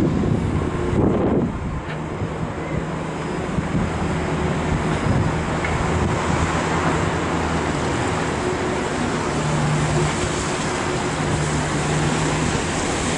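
Wind noise on the microphone over a steady low mechanical hum, such as a vehicle or machinery engine running.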